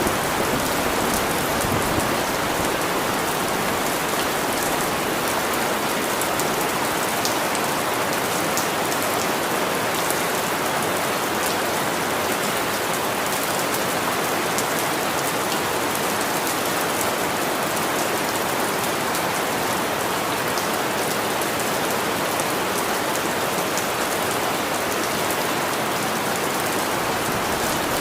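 Steady heavy rain falling on a surface: an even hiss with fine patters of individual drops.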